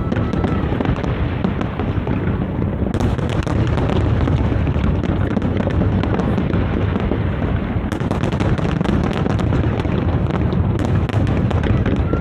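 Large aerial fireworks display: a continuous rapid barrage of shell bursts booming over one another, with thick spells of sharp crackling starting about three seconds in and again about eight seconds in.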